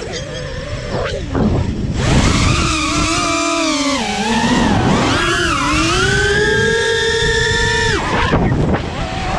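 A 5-inch FPV quadcopter's brushless motors (T-Motor Pacer 1950KV on 6S) whining as the throttle changes, the pitch rising and falling. The whine breaks off for a moment about a second in and again near the end.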